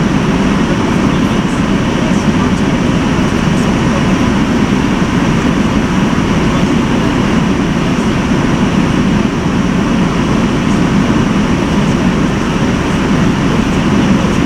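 Steady rumble of a moving car, road and running noise without a break.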